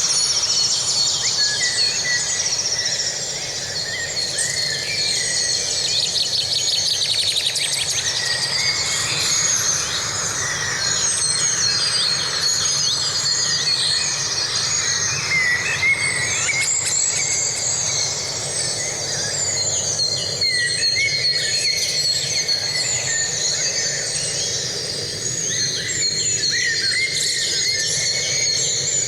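Dawn-chorus-like forest ambience: many songbirds chirping, trilling and whistling at once, with a fast rattling trill in the first several seconds, over a steady faint background hiss.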